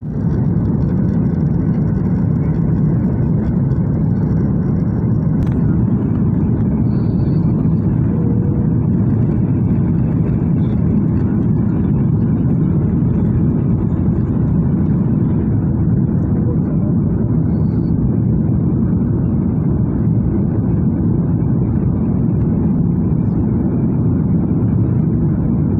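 Steady cabin noise inside a flydubai Boeing 737 on final approach: jet engines and air rushing past the extended flaps, loud and even, heaviest in the low range.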